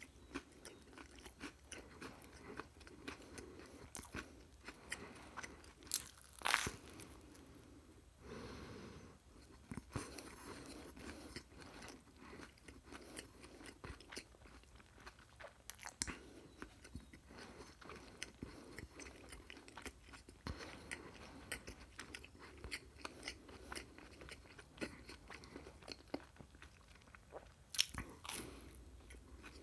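Close-miked chewing and crunching of food, a steady run of small crisp clicks with a few louder crunchy bites, one about six seconds in and more near the end.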